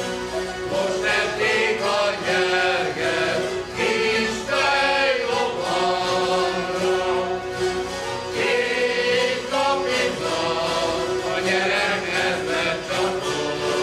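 A large ensemble of Hungarian citeras (fretted folk zithers) strummed together in a folk tune, with a steady drone under the melody, while the players sing along as a choir.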